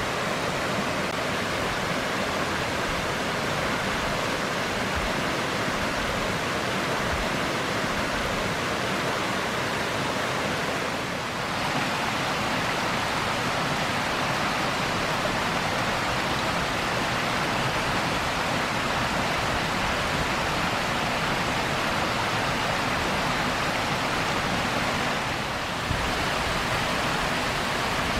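Steady rushing of a small forest stream running over rocks, with two brief slight dips in level, about eleven seconds in and near the end.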